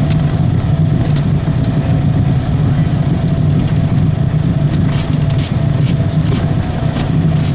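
Business jet's turbine engines running steadily, heard from inside the cockpit, a constant low engine noise with a high thin whine over it. A few sharp clicks come in the second half.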